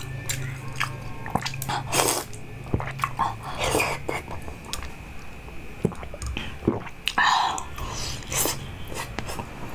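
Biting and crunching chunks of ice frozen from a sports drink, in a string of irregular sharp crunches and clicks, over a low steady hum.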